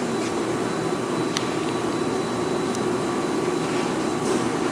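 Steady whirring machine noise with an even rushing hiss, like a large fan or blower running; a faint tick about a second and a half in.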